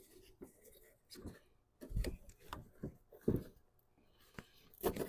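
Irregular knocks and clatters of hands working loose plastic grille trim and clips on a truck's front end, faint at first and coming more often from about two seconds in.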